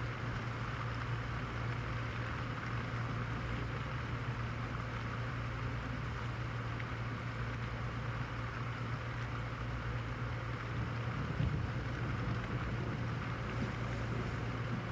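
Steady rainfall of a thunderstorm, an even hiss, over a constant low hum. There is a brief low bump about eleven seconds in.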